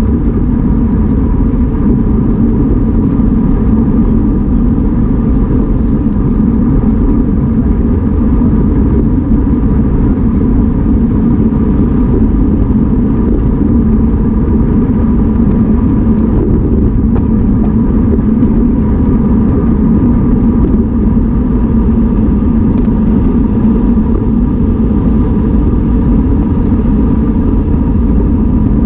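Loud, steady wind rumble buffeting the microphone of a camera on a road bicycle moving at race speed.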